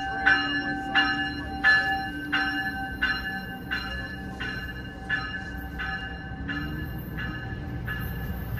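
A railroad bell rings steadily at about three strikes every two seconds and slowly grows fainter, over the low rumble of a train that builds near the end.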